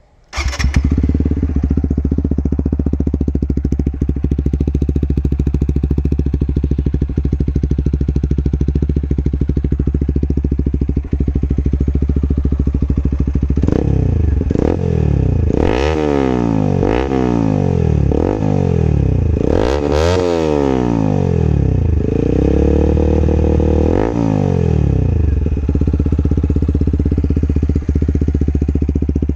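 TVS Apache RTR 160 4V's single-cylinder engine, breathing through an aftermarket LeoVince carbon-fibre exhaust with the dB killer removed, starts up and idles. It is then revved in about six quick throttle blips and one longer held rev before settling back to a steady idle.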